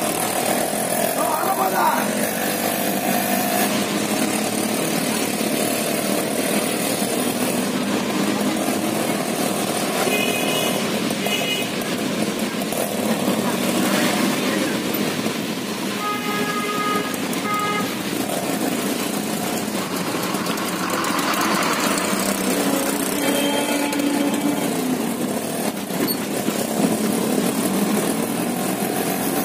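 Ride inside an auto-rickshaw in heavy rain: the engine runs under a steady hiss of rain and tyres on the wet road. Vehicle horns beep in short bursts a few times, about a third of the way in, just past the middle and about two-thirds in.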